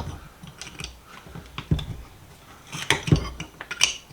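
Metal hand tools clicking and clinking against a rusted vise while working at a cotter pin, in scattered taps with a short cluster of clinks about three seconds in.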